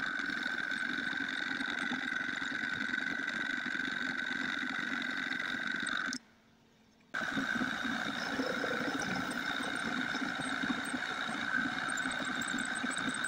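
Homemade metal lathe, driven by a salvaged electric lawnmower motor on a VFD, running with a steady whine while turning metal stock. The sound cuts out for about a second around the middle, then carries on the same.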